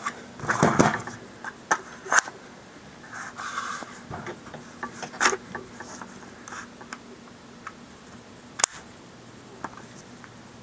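Loaded magazine scraping and rustling as it is handled and pushed up into an AR-15's magazine well, with a few light clicks. Near the end comes one sharp click: the magazine catch snapping into place as the magazine seats.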